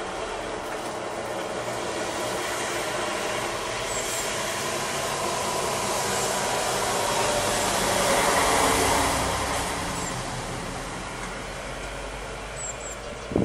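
Vehicle passing on the street: a steady engine-and-tyre noise that swells to its loudest about eight or nine seconds in, then fades. A few faint, short high chirps from great tits come through it.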